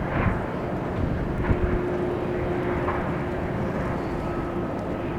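Jet airliner engines running steadily at low power: an even rumble with a steady hum, and a higher whine joining about four seconds in.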